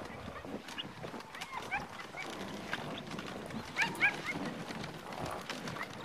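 Sled dogs giving short, high yelps: one about a second in, a few more shortly after, and a cluster around four seconds in, over a steady clatter of small knocks and scrapes from the team and sled.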